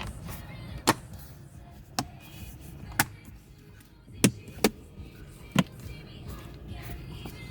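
Plastic trim clips snapping into place as a center console side trim is pressed home: about six sharp clicks, spaced roughly a second apart, two of them close together just past the middle.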